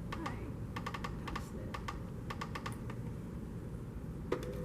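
Quick runs of small push-button clicks, four or five presses at a time in repeated bursts, as the frame position is nudged on a Wolverine film-to-digital scanner. A steady low hum runs underneath.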